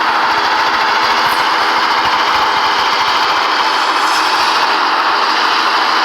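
Helicopter flying low overhead: a loud, steady drone of engine and rotor with an even hum of several tones.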